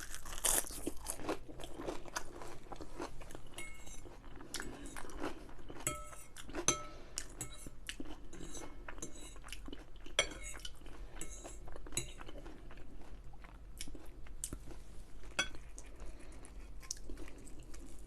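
Close-up chewing of crispy battered onion rings: a run of crunches and small crackles, one after another.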